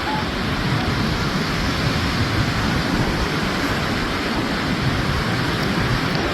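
Steady rush of surf and strong wind stirred up by an approaching hurricane, with gusts buffeting the microphone.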